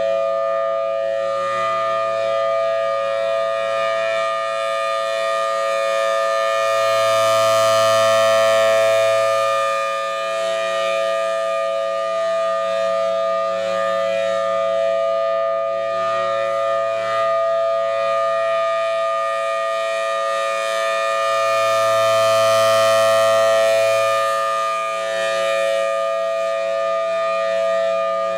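Federal Signal Thunderbolt 1000TB outdoor warning siren sounding a steady held tone during a tornado siren test. The loudness swells and fades about every 14 seconds as the rotating siren head sweeps past.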